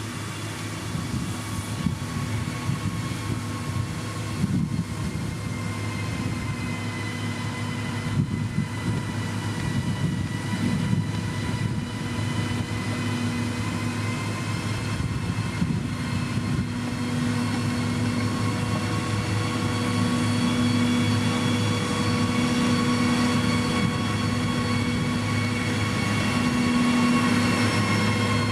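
Heavy road-building machine's diesel engine running steadily under work, with a whine that drifts slightly in pitch and scattered knocks in the first half. The sound grows gradually louder as the machine comes closer or works harder.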